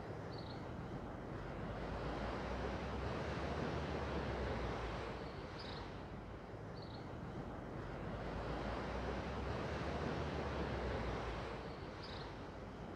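Outdoor ambience: a rushing noise that swells and fades twice, with a few short high chirps.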